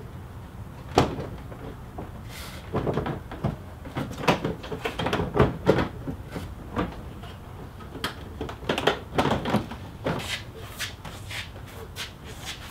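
Plastic front bumper cover of a 2016 Mustang GT being worked off its mounting pins and clips by hand: a run of irregular plastic clacks and knocks, coming thicker about four seconds in.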